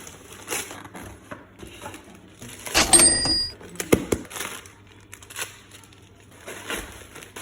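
Gift packaging being handled and unwrapped, with crinkling and rustling. About three seconds in comes a loud sharp clink that rings briefly, and a knock follows a second later.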